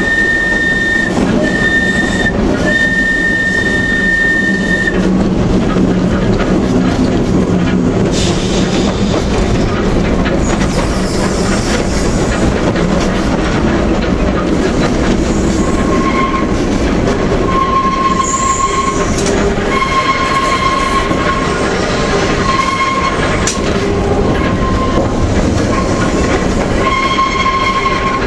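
Manx Electric Railway tram running with a steady rumble of wheels on rail, its wheel flanges screeching against the rails on very tight bends. A high screech sounds in three short stretches in the first five seconds, then a lower screech comes and goes through the second half.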